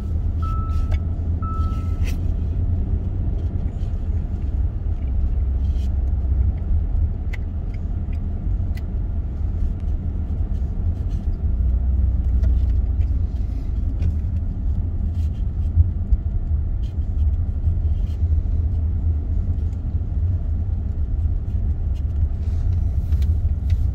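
Steady low rumble of a car driving on a paved road, heard from inside the cabin. Two short beeps sound about a second in.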